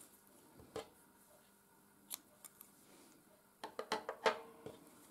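Scissors cutting velvet yarn: a click about a second in, another about two seconds in, then a quick run of snips and clicks near the end, the loudest of them last.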